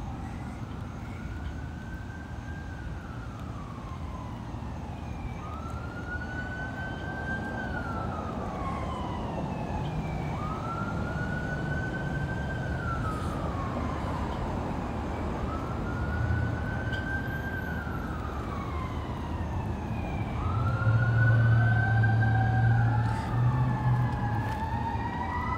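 An emergency vehicle siren wailing, its pitch rising, holding and falling about every four to five seconds and growing louder. About twenty seconds in, a second siren tone overlaps it and a vehicle engine rumble gets louder.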